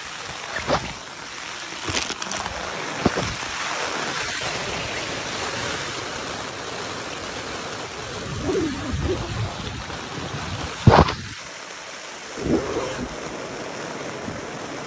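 Rain falling on a tent, heard from inside: a steady hiss of rain on the fabric with scattered louder drops and knocks. The loudest is a sharp tap about eleven seconds in.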